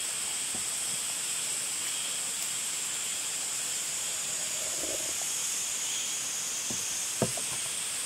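Steady high-pitched hiss of outdoor background ambience, with a single light knock about seven seconds in as a metal camping mug is set down on a wooden table.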